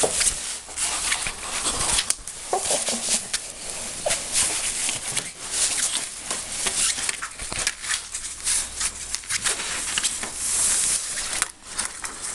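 Pet ferret wrestling with a hand inside a fleece bed: continual scuffling and rustling of the fabric, with quick soft clucks of the ferret's play 'dooking'.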